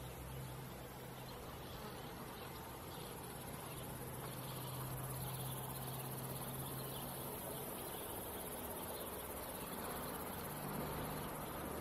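Steady, high-pitched chirring of crickets, with a faint low hum under it that drops out about two-thirds of the way through and returns near the end.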